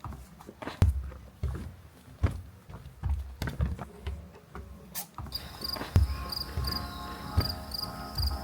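Footsteps thudding irregularly on steps. About five seconds in, insects such as crickets start chirping in a steady rhythm, about three chirps a second.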